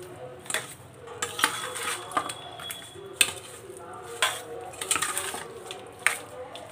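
Metal spoon stirring raw chicken pieces in a stainless steel bowl, clinking and scraping against the steel at irregular intervals.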